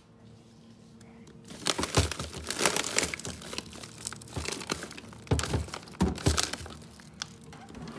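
Plastic bags of frozen food crinkling and rustling as things in a freezer drawer are shifted, with a few dull thumps. The first second and a half is quiet apart from a low steady hum.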